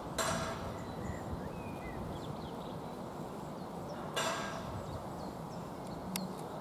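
Outdoor trackside ambience: a steady low rumble with a few faint bird chirps, broken twice by a brief rush of noise, once just after the start and again about four seconds in.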